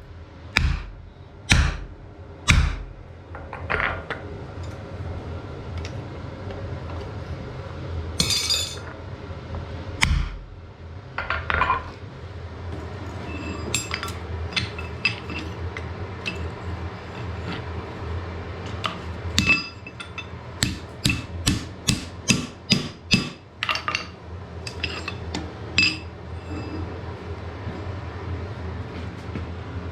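Hammer blows on iron at the anvil, with a clear metallic ring. There are a few blows at the start, then a quick run of about two blows a second in the second half, over a steady low hum.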